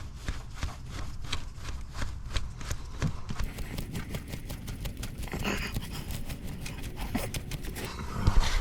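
Hand primer plunger on a Duramax diesel's fuel filter head being pumped over and over, making a rapid run of clicks. This is priming the fuel system after a filter change: pumping until fuel sprays from the bleed port shows it is primed.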